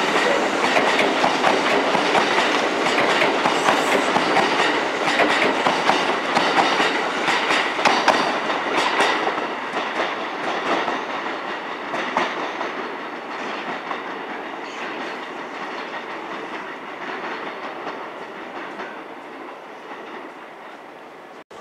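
Kintetsu electric train running through the station's points, its wheels clacking over the rail joints and switches, the sound gradually fading as the train moves away.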